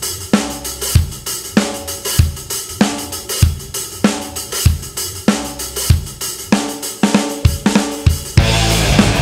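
Rock music track: a steady drum-kit beat of kick, snare and cymbals, with the rest of the band, guitar included, coming in near the end.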